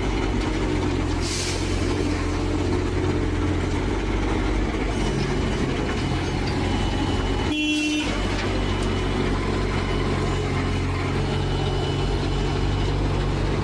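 A heavy vehicle's engine running steadily, broken briefly about seven and a half seconds in.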